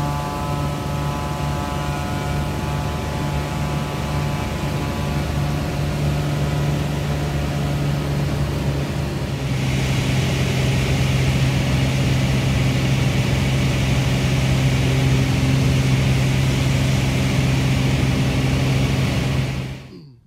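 Small bush plane's engine and propeller running, heard inside the cabin: a steady drone with a pitched hum during the takeoff roll, then in the air. About halfway through it shifts abruptly to a louder drone with more hiss, and it cuts off suddenly just before the end.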